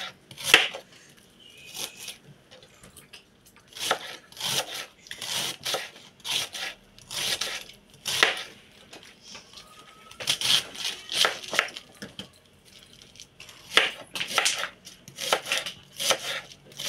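A kitchen knife slicing red cabbage into thin shreds on a wooden cutting board: a run of irregular, crisp cuts, each ending in a tap of the blade on the board, pausing briefly twice.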